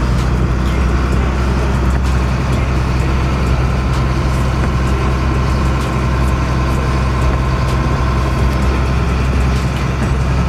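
Tow truck's engine running steadily while driving, heard from inside the cab as a low drone with tyre and road noise. Light ticks come and go throughout.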